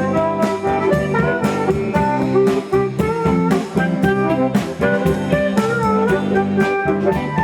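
A band playing an instrumental break of a country-style song, without singing. A steady drum beat runs at about two hits a second under held melody notes.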